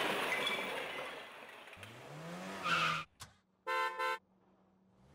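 Logo sound effect of a car: an engine revving up and holding, a short tyre skid, a click, then two quick car-horn toots. It is preceded by a wash of noise that fades out in the first second.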